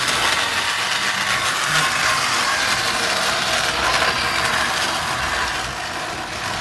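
Ryobi 18V cordless one-handed chainsaw running steadily, its chain cutting through pallet wood. The sound eases a little about a second before the end.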